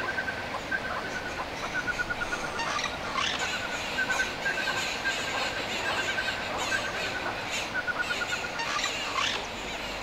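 Wild birds calling: repeated short trills of quick, evenly spaced notes at one pitch, with a few falling whistled calls.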